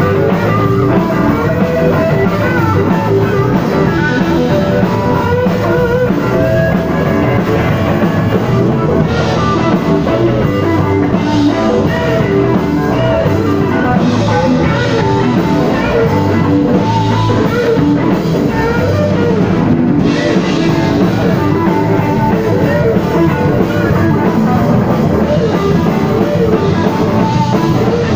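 Rock band playing live: electric guitar, bass guitar and drum kit, loud and continuous.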